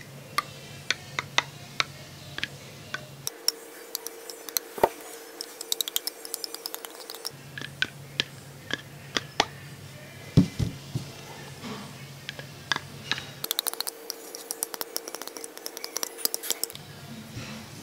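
Handling of field-stripped pistol parts, slides and barrels picked up and set down, giving scattered small clicks and taps over a steady low hum.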